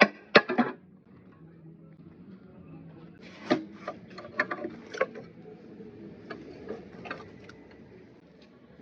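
Irregular metallic clicks and knocks of hand tools and parts being handled on an engine: a quick cluster at the start, then scattered single clicks over a low background hum.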